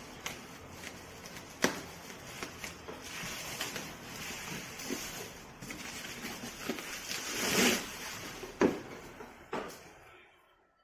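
Hands handling a headset and its packaging: rustling, with scattered sharp clicks and knocks. The rustling swells about three-quarters of the way through, then fades out near the end.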